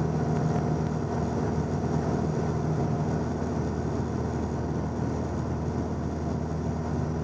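Steady drone of a 1977 Cessna 172N's four-cylinder Lycoming O-320 engine and propeller in cruise flight, heard inside the cabin.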